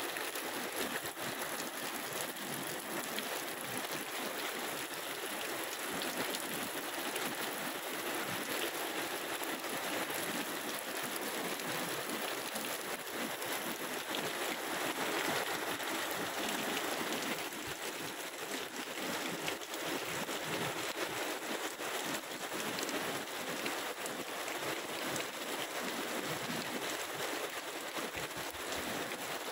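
Heavy tropical downpour: steady, dense rain hissing down evenly.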